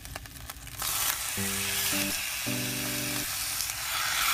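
Pork neck steaks laid into a hot, oiled cast-iron skillet. A few faint crackles give way to steady frying sizzle about a second in, which grows louder near the end as more meat goes into the oil.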